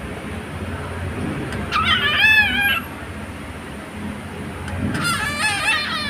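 Cockatiel chattering in two short bouts of high, wavering warbles, the second starting about five seconds in.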